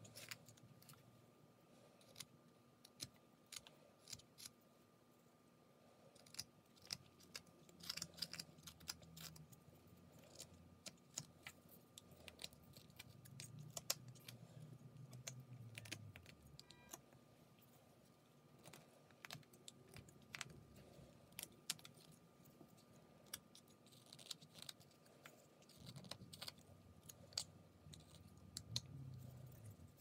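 Whittling knife paring small chips from a wooden carving: quiet, irregular clicks and snicks of the blade cutting through the wood.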